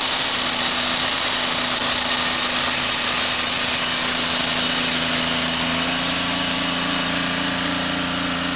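Engine of a rail-mounted track maintenance machine running steadily, a low hum under an even mechanical hiss, the hum growing a little stronger past the middle.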